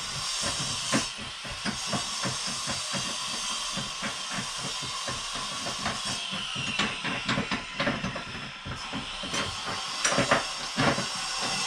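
Compact corded circular saw cutting across a softwood batten: a steady hissing cut with many small knocks through it, and a few louder knocks near the end.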